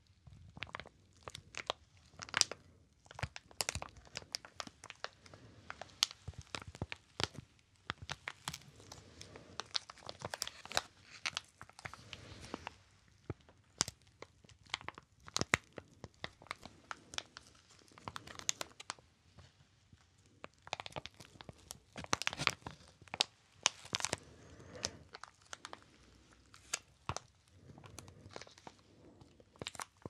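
Clear plastic packaging on a cardboard header card crinkled and crackled in the hands close to the microphone: dense, irregular sharp crackles with short lulls about 13 and 20 seconds in.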